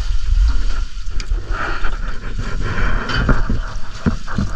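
Wind buffeting the microphone over the steady low rumble of an outrigger boat under way, with a few short knocks near the end.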